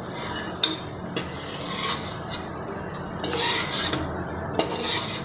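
A steel slotted spoon scrapes against an aluminium kadhai as fried garlic and chillies are lifted out of the oil. The rasping scrapes come and go, with a few sharp clinks of metal on metal.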